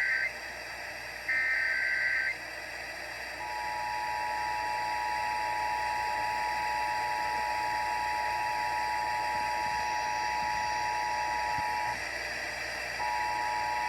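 Emergency Alert System broadcast received on an FM radio over steady static hiss. It opens with the end of one digital SAME header burst, then a second burst of about a second. After a short pause comes the EAS two-tone attention signal, a steady dual tone held for about eight seconds, which breaks off for about a second and starts again near the end.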